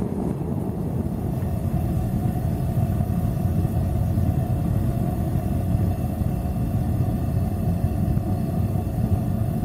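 Burner of a gas-fired forge running with a steady low rush and a faint steady tone, while a steel slab heats to red inside.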